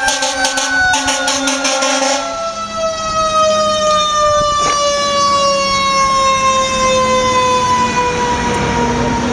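Fire truck siren winding down: one long wail whose pitch falls slowly and steadily all the way through. A fast rattling pulse sounds over it for the first two seconds.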